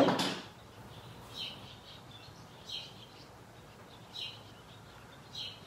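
A short, sharp clank right at the start as the hanging hook is taken off the cast iron skillet. After it comes a short high chirp about every second and a half, typical of a bird calling.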